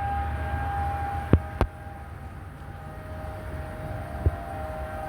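Tornado warning siren sounding a steady tone, with two sharp clicks about a second and a half in and another near the end, over a steady low rumble.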